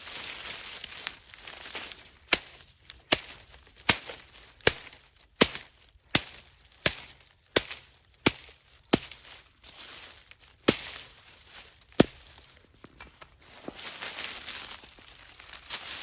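Chopping: a dozen sharp strikes, about one every 0.7 seconds for several seconds, then two more spaced further apart. A crunching, rustling noise comes before the strikes and returns near the end.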